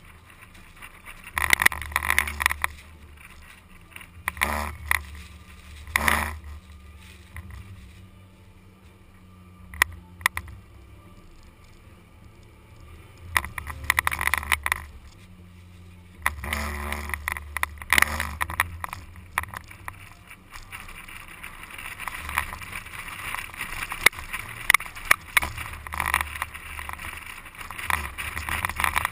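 An SUV driving over desert sand, picked up by a microphone on the outside of the vehicle. A low engine drone runs under gusts of wind rushing over the microphone. In the last third these give way to a steadier hiss with sharp crackles.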